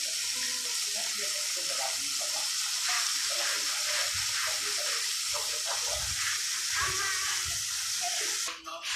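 Steady sizzling of bitter fern shoots frying in a pan, which stops abruptly near the end.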